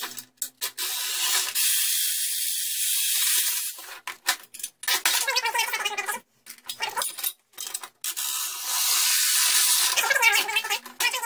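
DeWalt cordless right-angle drill with a socket bit running in several bursts, spinning the threaded rod of a square-tube screw-jack elevator to take it apart: an even high hiss with a rougher, wavering stretch in the middle.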